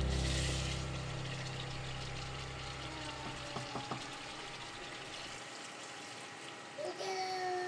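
Background music fades out over the first second or two. A wooden spoon knocks a few times against a pot of chicken gravy, then near the end water is poured from a mug into the pot, gurgling into the liquid.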